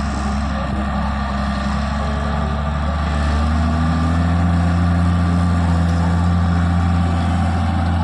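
JCB 3DX backhoe loader's diesel engine running steadily, then getting louder and working harder about three seconds in as it takes on load.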